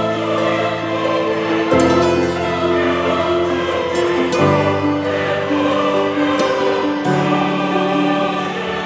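Background music of slow, sustained chords that change about every two and a half seconds.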